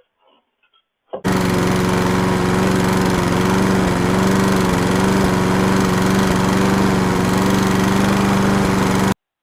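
A loud, steady drone with a low hum and a hiss over it. It starts suddenly about a second in and cuts off abruptly near the end; very annoying.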